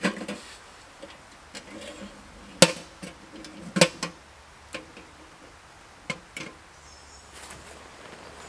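A few sharp knocks and clinks of camping gear being handled and packed away, the two loudest about two and a half and almost four seconds in.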